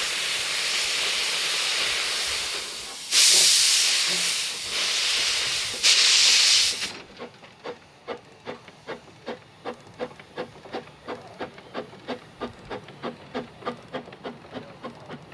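Narrow-gauge steam locomotives, Hudswell Clarke 'GP39' and Hunslet 'Sybil Mary', working a train: open cylinder drain cocks hiss steadily, with two louder blasts of steam about three and six seconds in. About seven seconds in the hiss cuts off and the exhaust comes through as even chuffs, about two or three a second.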